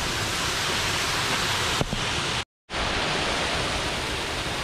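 Creek water pouring over a low stone dam spillway, a steady rushing noise that drops out completely for a moment about halfway through.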